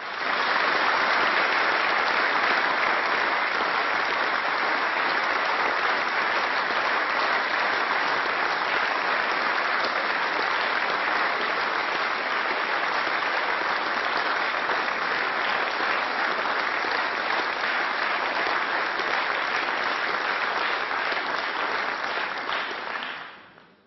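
Parliament members applauding the presentation of a newly elected presiding officer, steady for over twenty seconds and dying away near the end.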